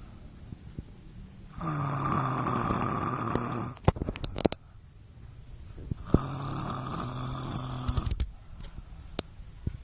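A woman snoring in her sleep: two long snores about two seconds each, with a low buzzing pitch, about four seconds apart. Each snore ends in a few sharp clicks, with quieter breathing between.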